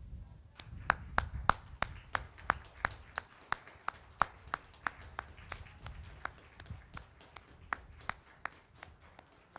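Rhythmic hand clapping, a few people clapping in unison at about three claps a second. It starts about half a second in, is loudest over the first few seconds and grows fainter toward the end.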